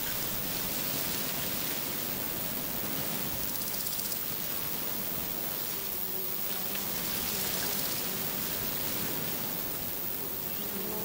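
A flying insect buzzing near the microphone, its low hum fading in and out about six seconds in and again near the end, over a steady hiss.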